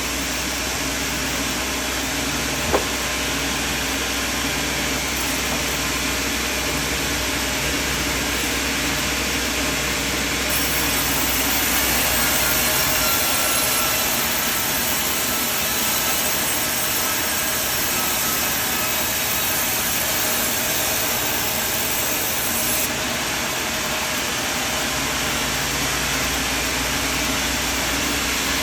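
Sawmill machinery running steadily, with a single sharp click about three seconds in; the deep low end of the noise drops away for a stretch in the middle.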